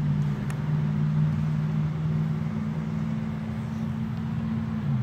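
Steady low engine hum of a motor vehicle running, dropping in pitch near the end.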